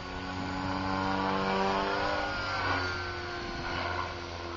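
Align T-Rex 500 electric flybarless RC helicopter flying overhead: a steady whine of the electric motor and rotor, its pitch wavering and gliding up as it manoeuvres, loudest in the middle.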